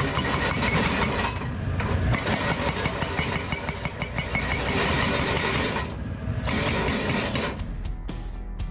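Excavator's hydraulic hammer pounding rock in fast, steady blows over the running diesel engine, pausing briefly twice. Near the end the hammering stops.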